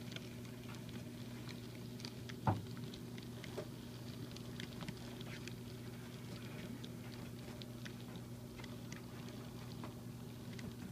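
N scale model freight cars rolling along the track, their wheels giving a scattered patter of small clicks and ticks, with one sharper click about two and a half seconds in. A steady low electrical hum runs underneath.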